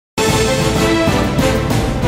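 Television theme music that starts abruptly after a split second of silence and carries on at full level, with held notes over a beat.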